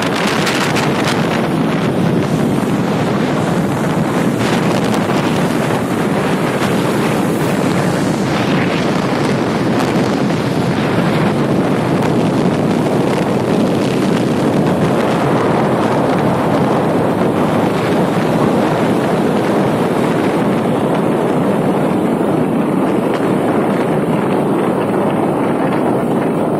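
Steady wind rush buffeting the microphone on a moving Bajaj Pulsar NS200 motorcycle, with its single-cylinder engine running evenly underneath.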